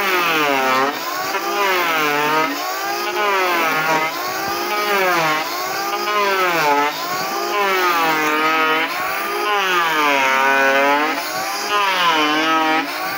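Electric hand planer shaving a wooden door plank. Its motor whine rises and falls in pitch with each push along the board, about once a second, over a steady hiss of cutting.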